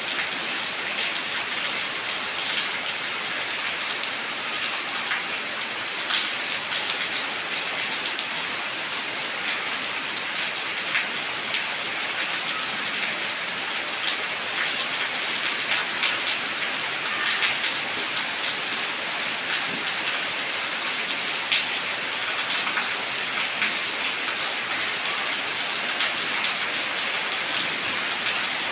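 Steady rain falling on shallow standing water over muddy ground: a dense, even hiss of drops hitting the puddle's surface, dotted with sharper individual drop splashes.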